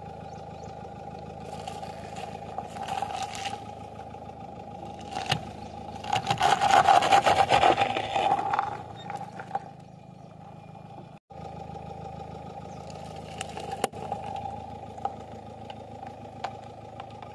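Car engine running slowly while its tyre rolls over objects on gravel and crushes them. About six seconds in comes the loudest part, a dense crackling crunch lasting two to three seconds, with a few smaller cracks later.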